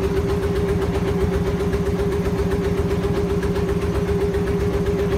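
A small boat's motor running steadily under way: a constant drone with one steady mid-pitched hum over a fast low throb.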